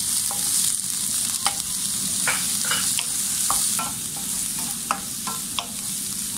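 Diced onions and bell peppers sizzling in hot oil in a non-stick wok while a wooden spatula stirs them, with a steady hiss and irregular clicks and taps of the spatula against the pan.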